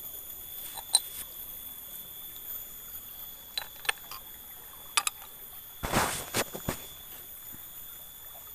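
Snail shells clicking against each other and against a plastic basket as they are picked up and dropped in: a few light clicks, then a louder clatter about six seconds in, over a faint steady high-pitched whine.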